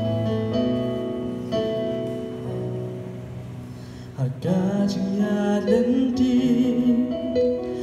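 Electronic keyboard playing slow, held chords as a gospel song opens. About four seconds in, a man's singing voice comes in over it with a rising glide, and the music gets louder.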